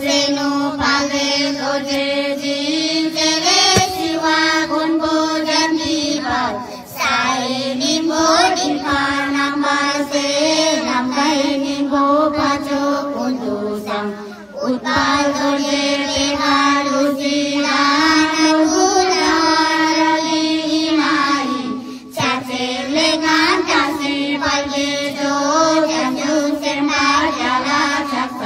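Young girls chanting Buddhist prayers from a prayer book in a sing-song melody, in long phrases on a fairly steady pitch with a short break for breath about every seven or eight seconds.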